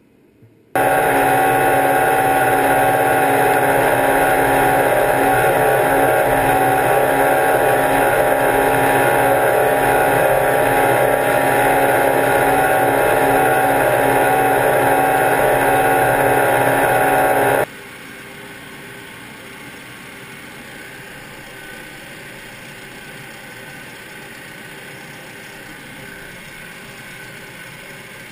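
Tractor engine running steadily under way, very loud and close for most of the first two-thirds, then suddenly much quieter but still running evenly.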